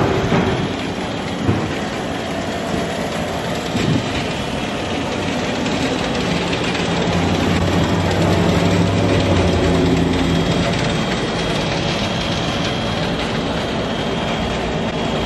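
Loud, steady city street noise, with a vehicle engine humming low for a few seconds around the middle.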